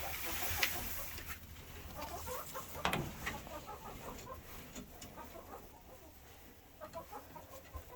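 Backyard chickens clucking quietly, many short scattered calls from a flock. A single knock about three seconds in.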